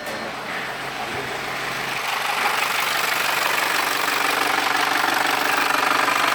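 Audi EA888 Gen3 (CJE) turbo petrol engine running, with the extraneous mechanical noise under investigation. It grows louder over the first two seconds and then holds steady.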